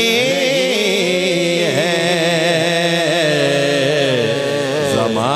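A male naat reciter's voice singing a long, ornamented melismatic run through the microphone, the pitch bending and wavering, over a steady low drone.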